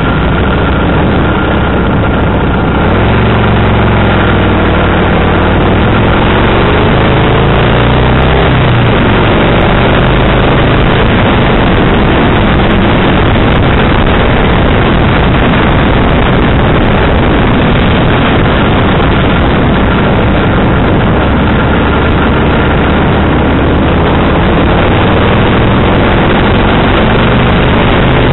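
Kawasaki VN1500 V-twin motorcycle on the move, its engine note rising and falling with speed a few seconds in and again near the end, under loud, steady wind rush on the microphone.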